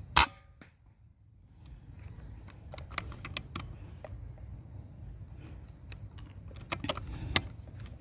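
A single sharp crack of an air rifle firing a slug, just after the start, followed by a scatter of lighter clicks and knocks, over a steady high insect drone.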